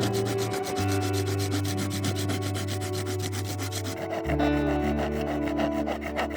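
Rhythmic rubbing strokes on wood, as in sanding or sawing by hand, over background music whose held bass notes change twice.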